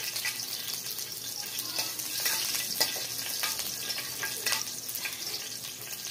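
Oil sizzling steadily in a frying pan as small pieces fry, with a spatula stirring them and clicking against the pan now and then.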